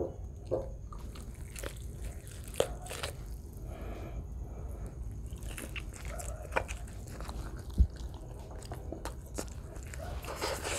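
Close-miked eating sounds of a man biting and chewing grilled chicken: wet mouth clicks, lip smacks and small crunches. A single low thump about eight seconds in.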